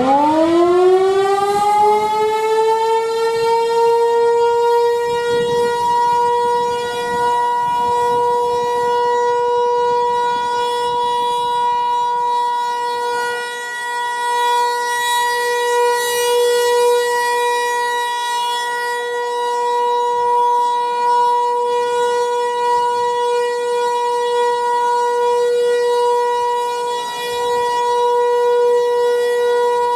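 Federal Signal 508-128 dual-tone outdoor warning siren sounding its alert signal for a test: it winds up rapidly in pitch, then holds a loud, steady two-note chord, and starts to wind down at the very end.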